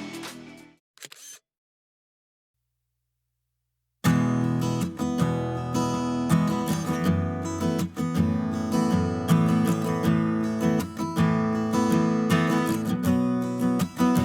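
Background music: an electronic track fades out in the first second, followed by a few seconds of silence. About four seconds in, a new track with guitar starts and plays on with a steady beat.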